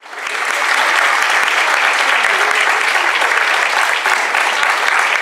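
Audience applauding steadily, the clapping rising in over the first half-second.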